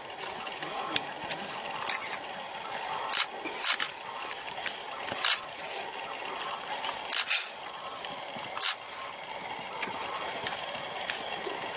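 Porcupine rattling its raised quills in short, sharp clattering bursts several times over a steady hiss: a defensive warning display against an attacking leopard.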